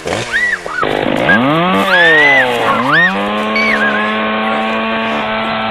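Two-stroke chainsaw revving up and dropping back twice, then held at full throttle in a steady high drone. Short high-pitched cries sound over it.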